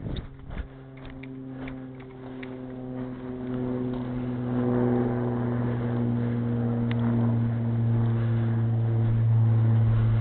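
An engine running steadily at one low, even pitch, growing louder over the first few seconds and then holding.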